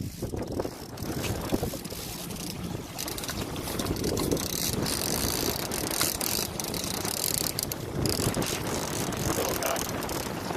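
Fishing reel clicking and ratcheting as a coho is reeled in, with dense fast clicks through the middle, over wind buffeting the microphone.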